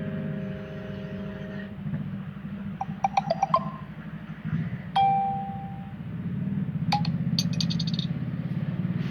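Samsung Galaxy notification tones, several different short chimes in turn: a held chord that stops about 1.7 s in, a quick run of short notes about 3 s in, a single ringing ding at about 5 s, and bright tinkling notes around 7 to 8 s. A steady low hum runs underneath.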